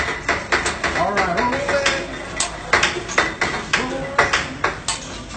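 Metal spatula clanking and tapping on a steel teppanyaki griddle in sharp, irregular strikes, two or three a second, with people talking behind.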